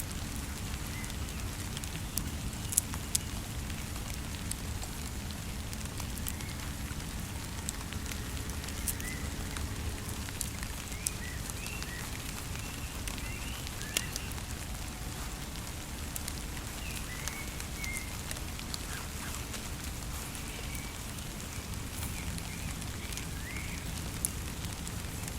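Wood campfire crackling, with scattered sharp pops, over a steady low rumble. Faint short chirps come and go.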